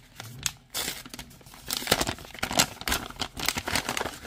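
Brown kraft-paper gift bag crinkling and crackling in hands as it is worked open. The crackles come irregularly, sparse at first and busier from about two seconds in.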